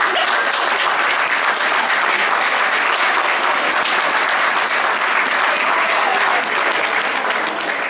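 Audience applauding steadily, a dense patter of many hands clapping that eases slightly near the end.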